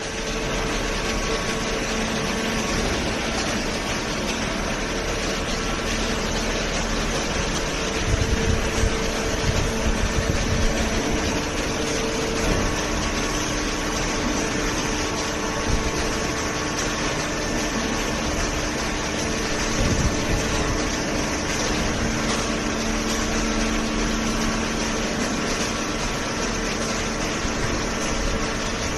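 Hydraulic cardboard baler running: a steady mechanical hum from its motor and pump, with a few louder low knocks partway through.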